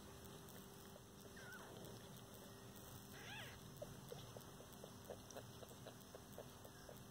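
Faint, high mews from a newborn kitten: a thin squeak about a second and a half in, then a short rising-and-falling mew a little after three seconds. After that comes a run of soft, short ticks, about three a second.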